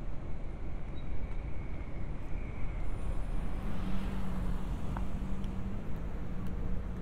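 City street at night: a steady low rumble of road traffic. A steady low hum joins a little past halfway.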